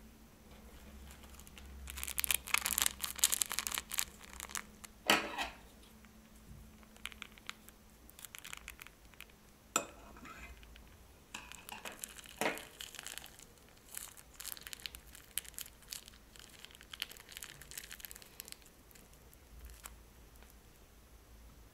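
Plastic piping bags crinkling and rustling as they are handled, in irregular bursts, with a few sharp clicks or snaps at intervals.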